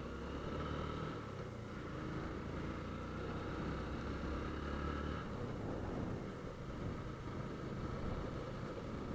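Motorcycle engine running under light throttle as it rides through town streets, with a steady low engine note that drops away about five seconds in as the throttle eases off, leaving a low rumble of engine and road noise.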